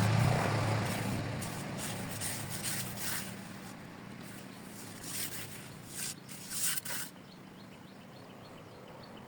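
A motor vehicle engine fading away over the first few seconds, then several brief scratchy noises, and near the end faint repeated bird chirps.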